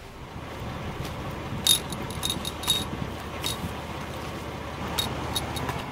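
Several sharp metallic clicks and clinks of camera tripods being set up, heard over a steady rumble of wind on the microphone.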